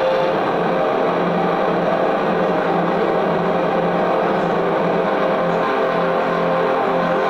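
Electronic noise music from a keyboard synthesizer: a loud, dense, steady drone with held tones inside it. About a second in, a low tone starts coming and going in short pulses.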